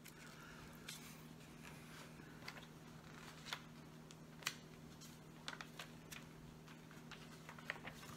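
Scattered small sharp clicks and taps of plastic Lego bricks being picked up and set down on a wooden table, over a faint steady hum.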